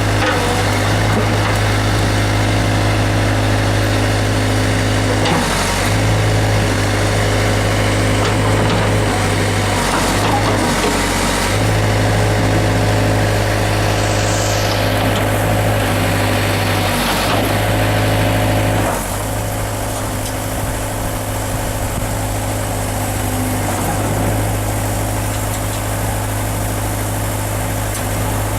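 Case 580E backhoe's diesel engine running steadily, with a few brief dips in its hum; about 19 seconds in it settles to a lower, quieter idle.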